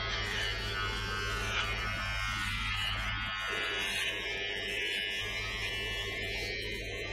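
Braun BT5265 electric trimmer buzzing steadily as it is run through the hair on the head, cutting it.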